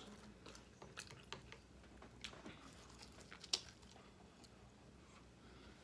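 A person chewing food close to the microphone: faint wet mouth clicks and soft crunches at irregular moments, the sharpest about three and a half seconds in.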